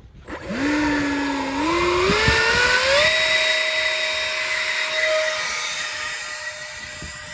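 Electric ducted fan (70 mm, on a 4S LiPo) of an Art Tech MiG-15 RC jet spooling up: a whine that climbs in steps for about three seconds to full throttle, then holds steady and slowly fades as the jet flies away.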